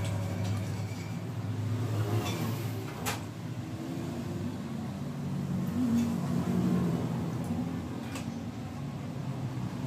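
A steady low motor hum, with a few light, sharp metallic clicks as the parts are handled, the clearest about three seconds in.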